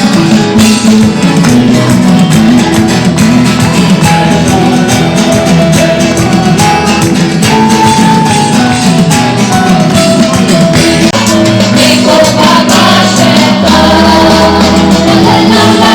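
Loud song with singing over a steady beat of drums and percussion.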